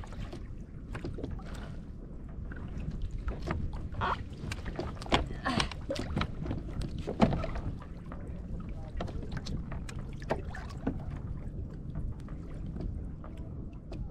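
Water sloshing against a kayak hull, with scattered sharp knocks and rattles of gear on the kayak; the two loudest knocks come about five and seven seconds in.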